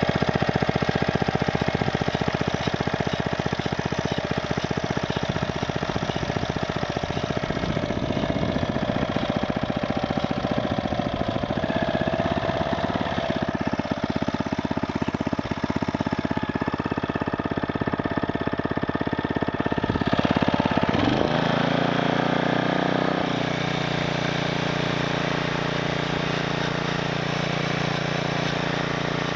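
5 hp Briggs & Stratton single-cylinder lawnmower engine running on a motorized bicycle. About two-thirds of the way in its note sweeps up, and it then holds a steady, higher-pitched run.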